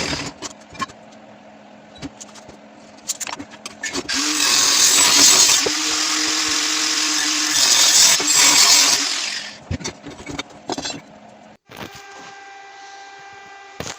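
A power tool working steel tube, running loudly for about five seconds in the middle, with scattered metal knocks and clatter before and after it. A steady electrical hum comes in near the end.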